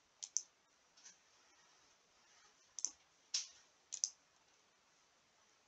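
Faint computer mouse clicks, several separate clicks with a couple in quick pairs.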